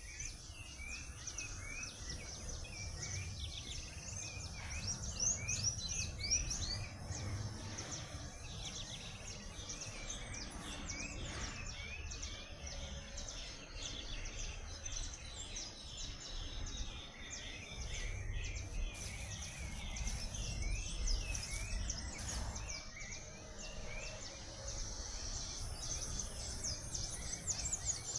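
Birds chirping and singing: many short, quick rising chirps, several voices overlapping throughout, over a low background rumble.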